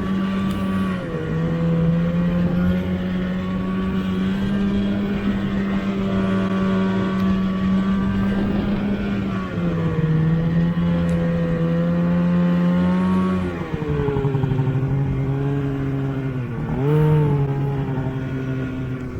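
Snowmobile engine running steadily under throttle. Its pitch drops and rises a few times as the engine speed changes, with a short dip and rise near the end.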